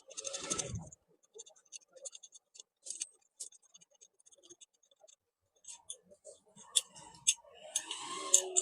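Light scratching and scattered small clicks of a screwdriver and metal parts while a mixer grinder motor is taken apart, with a short rustle at the start and busier scraping near the end.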